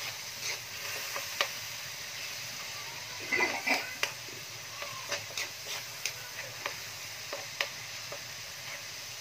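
Metal spoon stirring and knocking against a wok in irregular clicks and taps, with a louder scrape about three and a half seconds in, over the steady low sizzle of sardines and garlic frying in olive oil.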